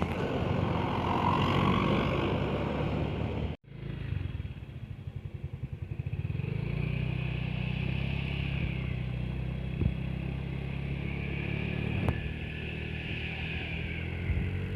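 Road vehicles running in traffic: passing vehicle noise, then, after a brief break a few seconds in, a steady engine hum with a few light knocks.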